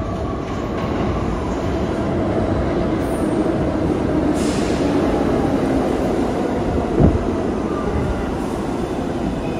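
An R62A subway train on the 6 line rumbles into an underground station, growing a little louder after the first second as it draws alongside. There is a short hiss about four and a half seconds in and a single sharp clank about seven seconds in.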